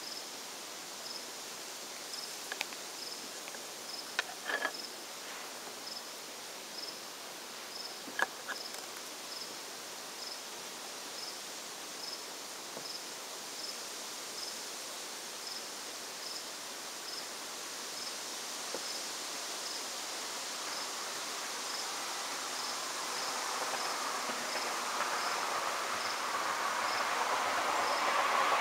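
Summer-evening insects: a steady high chirp repeating about every two-thirds of a second over a constant high hiss of insect song. A few short sharp clicks come about four and eight seconds in, and a broad noise swells over the last several seconds.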